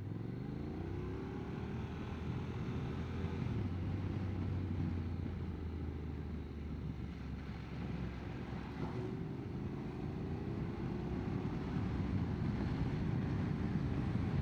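Motorcycle engine pulling away out of a hairpin bend. Its pitch rises over the first couple of seconds and then holds steady, dips briefly around nine seconds in and climbs again, over wind and road noise.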